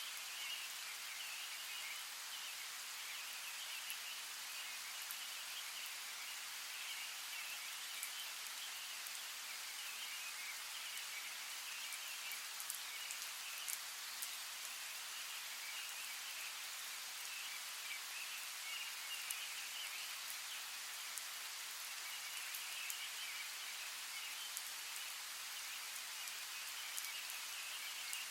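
Steady rain falling, an even hiss with scattered sharp drop ticks, under a faint wavering chorus of frog-like calls.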